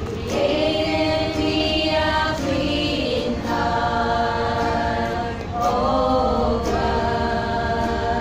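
A small group of women singing a worship song together in long, held notes, with a brief break about five and a half seconds in.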